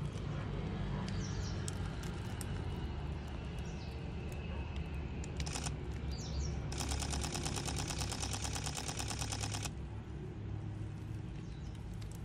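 Camera shutter firing in a rapid continuous burst, many clicks a second for about three seconds: a burst for a handheld focus stack. A brief shorter burst comes a second or so before it.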